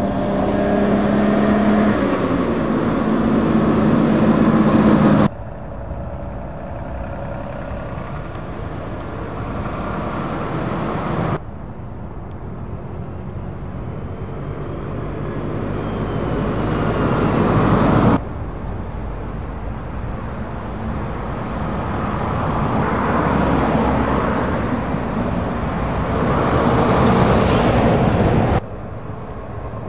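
Heavy trucks' diesel engines running as they drive past, in several short passes cut together, each ending abruptly. The first, loudest pass carries a steady engine note; the later ones swell gradually as each truck approaches.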